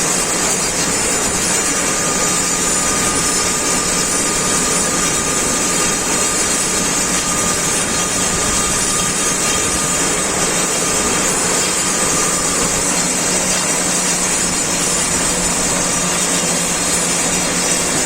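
Metal lathe running through turning and facing cuts: a steady machine hum with a strong hiss, and a faint thin whine from about two seconds in until about twelve seconds in.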